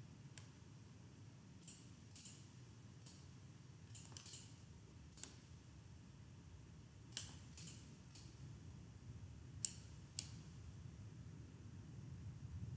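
Computer mouse clicks, about a dozen faint, sharp ones at irregular intervals, over a low steady room hum.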